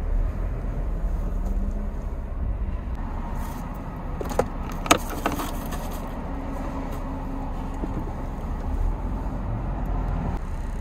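Car running, heard from inside the cabin: a steady low engine and road rumble. A few sharp clicks come about halfway through.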